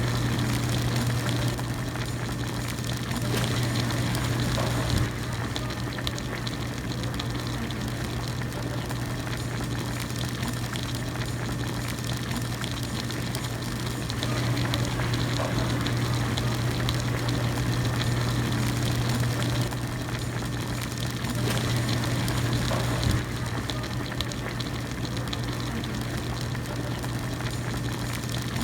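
Hot-pot broth at a steady rolling boil, a continuous bubbling over a low hum. The hum swells and eases in stretches, with a small click about five seconds in and again a little past twenty seconds.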